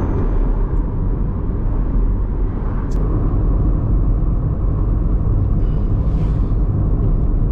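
Steady rumble of a car on the move, with engine and road noise, and a brief click about three seconds in.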